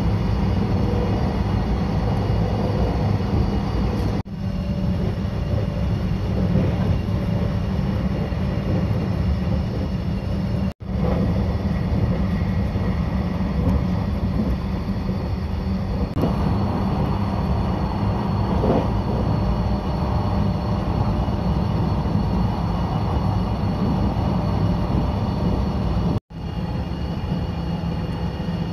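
Running noise inside the cabin of a JR 651 series express electric train travelling at speed: a steady rumble of wheels on rail, broken three times by very short gaps.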